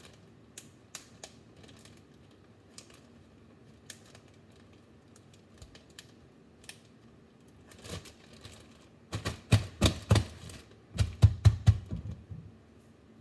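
Handling a plastic zip-top bag of frozen fruit at a kitchen counter: scattered light clicks and crinkles, then a quick run of sharp knocks and clatter for about three seconds near the end.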